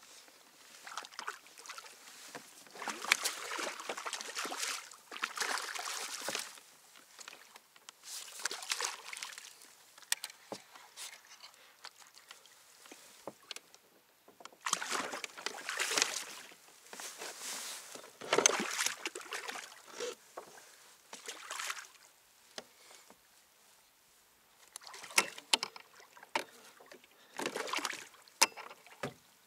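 Water splashing and sloshing beside a kayak in bursts of a second or two as a hooked fish is played close to the boat, with a few sharp clicks and short splashes near the end as it is brought alongside.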